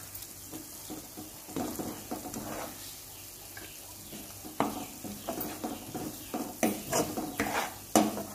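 Steel spatula stirring and scraping a frying onion-tomato masala in a kadai as chilli powder is worked in, over steady sizzling oil. The scraping strokes come quicker and louder from about halfway.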